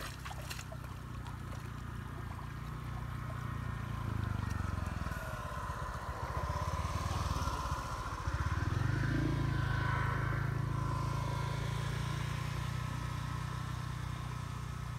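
A small engine running steadily. Its note wavers and drops for a few seconds around the middle, then steadies again a little louder.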